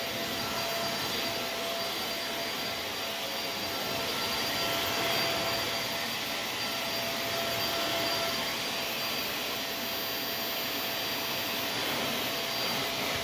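Shark Multivac NH15 vacuum cleaner running steadily as it is pushed over carpet. Its motor gives a steady rush of air with a high whine over it.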